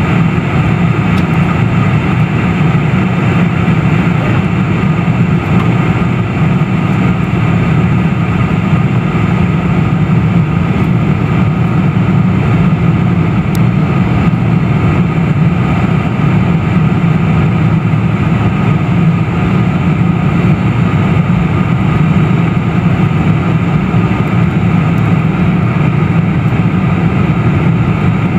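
Steady cabin noise of a Boeing 747-400 on approach, heard from a window seat beside the wing: its General Electric CF6 turbofans and the rushing air blend into a loud, even, deep rumble.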